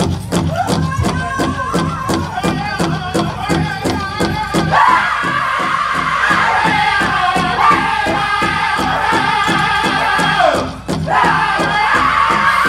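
Powwow drum group playing a chicken dance contest song: a big drum struck in a steady, fast beat under high-pitched group singing. The singing swells strongly about five seconds in and breaks off briefly near the end before picking up again.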